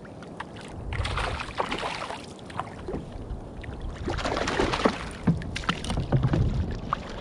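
A hooked fish splashing and thrashing at the water's surface beside a kayak as it is reeled in, with water sloshing in surges and a few sharp knocks near the end.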